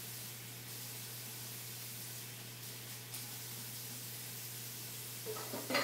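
Steady background hiss with a low hum, with a couple of faint ticks; a voice begins near the end.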